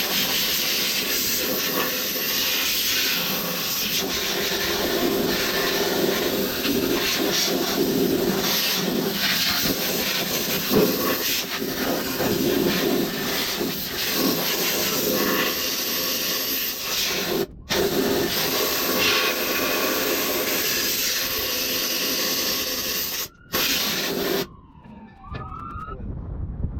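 Compressed nitrogen blowing from a hose nozzle into a plugged condenser coil to clear it: a loud, steady hiss. It breaks off briefly twice and stops near the end.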